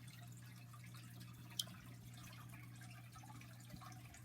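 Near silence: room tone with a steady low hum, and a single faint click about a second and a half in.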